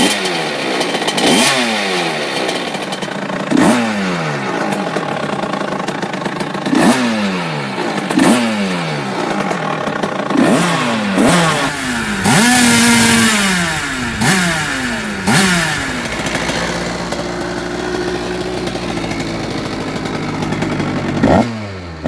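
A Rieju MRT's two-stroke engine, fitted with an 86 cc aluminium top-end kit, is revved in repeated quick throttle blips, each rising sharply and falling back. About halfway through, one rev is held high for a second. In the last few seconds the engine settles to a steadier, lower running.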